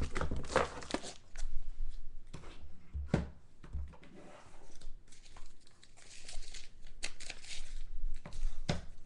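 Trading cards and their plastic packaging being handled: on-and-off rustling and crinkling with a few sharp clicks, one about three seconds in and another near the end.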